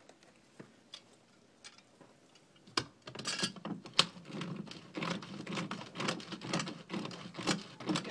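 A hand tool clicking and scraping as it is worked on a fitting at the base of a filter housing, squeezed into a tight gap against a stucco wall. After about three quiet seconds a sharp click starts a run of rapid, irregular clicks and scrapes.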